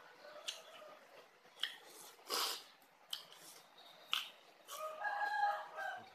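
A rooster crows once near the end, a held call of about a second. Before it, a few sharp clicks and a short noisy burst of eating sounds as she bites and chews.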